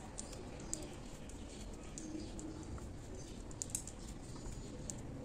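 Faint, sparse clicks of a metal crochet hook and long fingernails as a chain is worked in yarn, over a low steady room hum.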